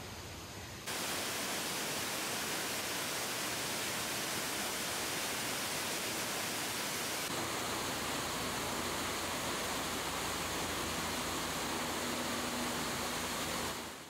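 Steady rush of a mountain stream flowing alongside the trail. It jumps louder about a second in, shifts in tone around seven seconds, and fades out at the end.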